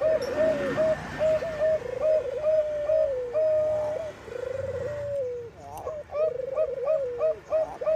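Bangkok-strain zebra dove (perkutut) cooing: quick, short staccato coos, about three or four a second, mixed with longer rolling notes that fall in pitch, with a brief break about five and a half seconds in. It is a female calling to males, used as a lure to set other perkutut singing.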